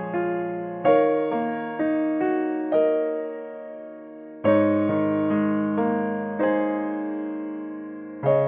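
Background music: a gentle solo piano playing single notes and chords, each struck and left to fade, with a fuller chord about halfway through.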